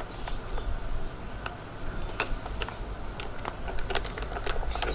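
Scattered light clicks and knocks of metal parts being handled as the dies and die holder of a battery hydraulic crimping tool are fitted, over a low steady hum.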